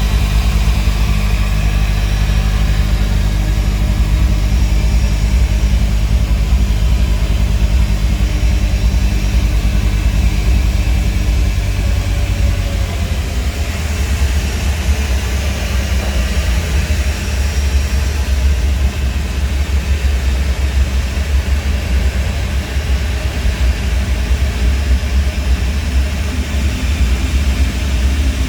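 Heavy engine noise from an airliner pushback: a steady, loud low rumble with a faint high whine above it, the low rumble shifting about halfway through.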